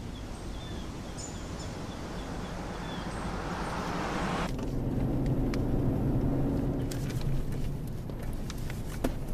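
Police car driving on a bush track: engine and tyre noise build as it approaches, then about halfway through it gives way suddenly to a steadier, lower engine hum heard from inside the car.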